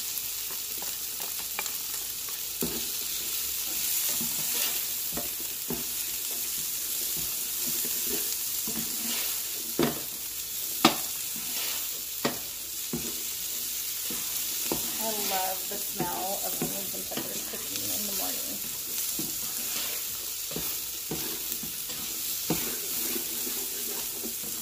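Chopped onion, red and green peppers, bacon and sausage sizzling in olive oil in an electric skillet while being stirred with a silicone spatula: a steady frying hiss, with a few sharp knocks against the pan around the middle.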